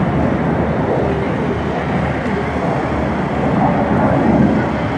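Steady rumble of an aircraft flying in the air show display, with crowd voices underneath.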